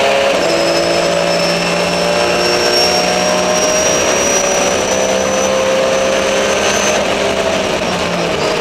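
Race car engine heard from inside the cabin, pulling hard with its pitch climbing slowly over several seconds, over a thin high whine. There is a brief break in the pitch just after the start, like an upshift, and the pitch falls near the end as the driver lifts or shifts.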